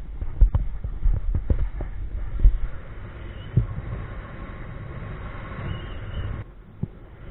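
Low thuds of running footsteps on grass jolting the camera during a paraglider's launch run. Then, once airborne, a steady rush of wind on the microphone, which dips briefly near the end.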